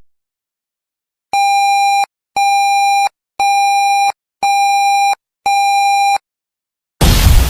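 Five identical electronic beeps, each a buzzy tone held for about two-thirds of a second, one per second. About a second after the last beep a sudden loud blast of noise starts near the end.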